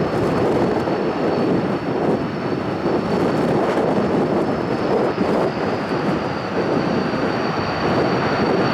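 Antonov An-12B's four turboprop engines running steadily: a dense rushing roar with a thin, steady high whine over it.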